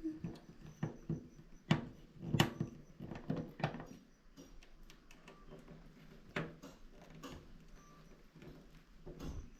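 Irregular knocks and clicks of metal solar-panel mounting hardware being handled and screwed together, several in the first few seconds, then fewer and fainter.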